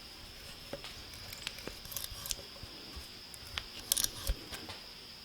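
Irregular light metallic clicks and scrapes of hand work on metal parts, a few louder clicks about four seconds in, over a faint steady high whine.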